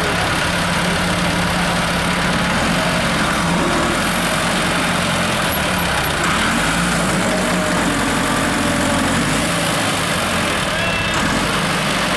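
Diesel engines of a Massey Ferguson 375 tractor and an excavator running together, a steady engine sound whose pitch shifts a few times.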